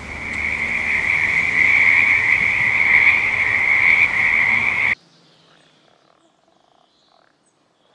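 A chorus of frogs calling: a steady high-pitched trill that swells over the first seconds. It cuts off suddenly about five seconds in, leaving near silence.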